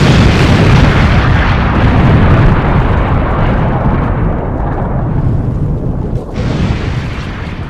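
Explosion sound effect: a loud blast of noise that fades slowly, with a second, brighter burst about six seconds in.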